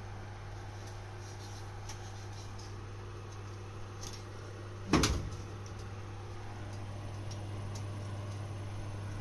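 Electric oven running with a steady low hum, and one sharp knock with a deep thud about five seconds in.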